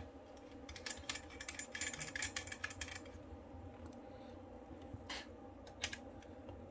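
Light clicks and small clatter of cables and connectors being handled and unplugged on a workbench, a quick run of them in the first three seconds, then a few single clicks, over a faint steady hum.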